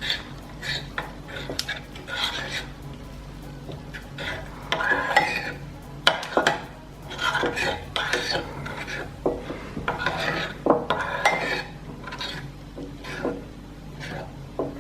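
Clear glue and BB cream being stirred in a bowl, the utensil scraping and clinking against the bowl in irregular strokes.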